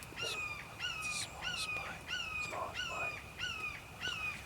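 A bird calling over and over, about two short notes a second, each note sliding slightly down in pitch.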